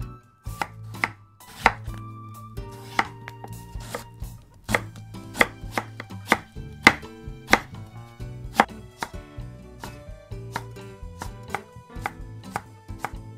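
Kitchen knife chopping daikon radish on a cutting board: sharp knocks roughly every half second to second, turning lighter and quicker in the last few seconds.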